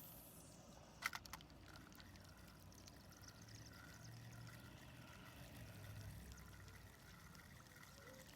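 Near silence with faint distant thunder rumbling low for a few seconds in the middle, a sharp click about a second in, and a faint high pulsing about twice a second.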